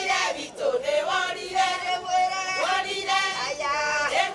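A group of women singing together, several voices on long held notes with a wavering pitch, in phrases broken by short breaths.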